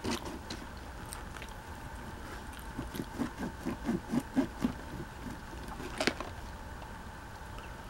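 Table knife and fork cutting a fried roll on a paper plate: a quick run of about nine sawing strokes in the middle, with a sharp tap of cutlery at the start and another near the end.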